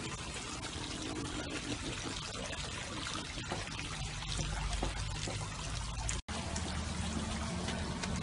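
Steady sound of running water, cut off for an instant about six seconds in.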